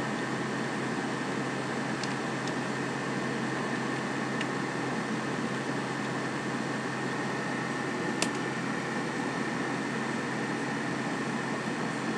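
Steady background hum and hiss with a faint constant high whine, and a single sharp click about eight seconds in.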